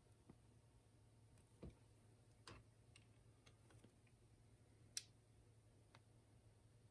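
Near silence with a few faint, scattered metal clicks and ticks as slip-joint pliers grip and turn a PL259 connector being screwed onto coax cable; the sharpest click comes about five seconds in.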